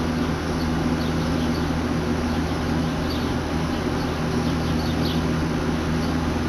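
Steady low mechanical hum of the city below, with scattered faint, high bird chirps.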